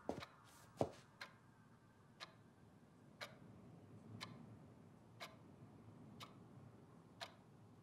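A clock ticking faintly, once a second, in a quiet room, with a couple of slightly louder clicks near the start.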